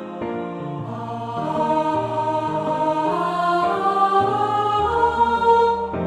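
Choir singing a hymn in slow held notes over piano accompaniment, the voices coming in about a second in and dropping out near the end, leaving the piano alone.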